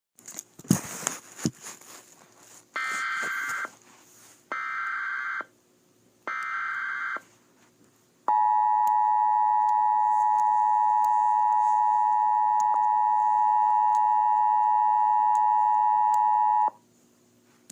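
Emergency Alert System tornado-warning tones: a few sharp clicks and crackle, then three short, identical bursts of the digital SAME header data, each just under a second. Then the steady two-tone EAS attention signal sounds for about eight seconds and cuts off abruptly.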